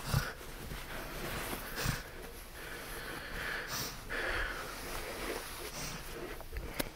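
Heavy, noisy breathing of a woman lying unresponsive in a tonic-clonic seizure episode: a run of long, hissing breaths about a second apart. A sharp click comes near the end.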